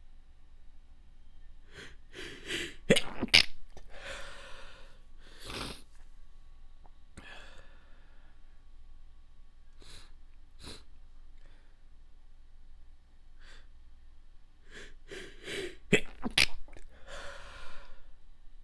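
Stifled, wet-sounding human sneezes in two bouts, one about two seconds in and one near the end. Each bout is a few sharp, held-back sneezes in quick succession, followed by a noisy breath out.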